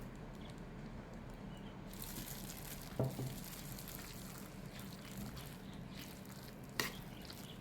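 Milk being poured into a bowl of stuffing ingredients: a faint liquid trickle over a low steady hum, with a short knock about three seconds in and another near the end.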